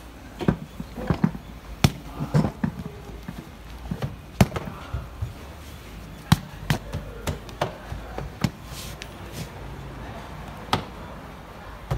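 Hands slapping and pressing a quilted leather-look seat cover onto a car seat: irregular sharp slaps and pats, a dozen or so, with rustling of the material between them.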